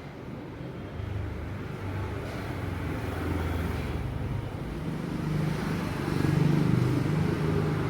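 A motor or engine running with a low hum, growing louder and higher in pitch about five to seven seconds in.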